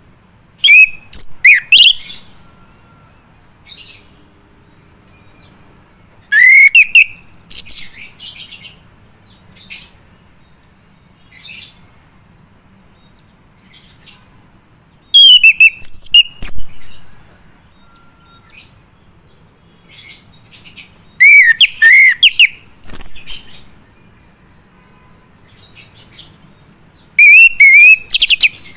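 Male chestnut-capped thrush (anis kembang) singing full song: loud phrases of gliding whistles and fast chattering notes every few seconds, with quieter single calls between them.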